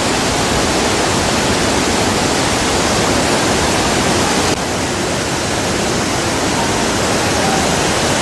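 Flash-flood torrent rushing through a valley: a loud, steady rush of churning water, dropping slightly in level about four and a half seconds in.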